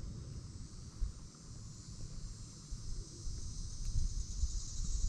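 Steady high-pitched insect chorus, growing louder near the end, over uneven wind rumble on the microphone.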